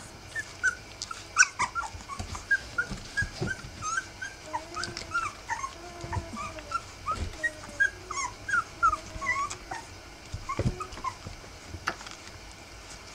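Three-week-old rough collie puppies squeaking and whimpering: a steady run of short, high squeaks, with a few longer, lower whines in the middle.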